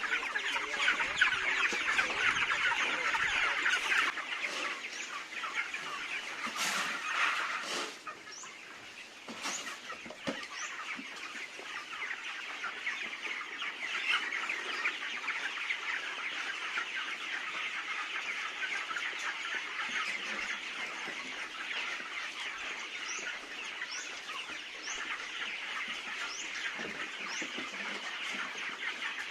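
A large flock of chickens clucking continuously in a poultry house, many birds calling at once. The din is louder for the first eight seconds, with a few brief sharp knocks or flaps around then.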